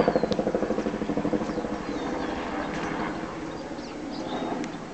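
Helicopter flying low overhead, its rotor blades beating in a rapid, even pulse that fades as it moves away. A few faint bird chirps sound over it.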